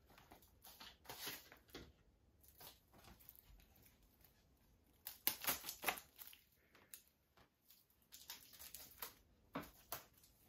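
Faint, scattered rustling and crinkling of a Blu-ray's plastic and cardboard packaging being handled, in short bursts with gaps between.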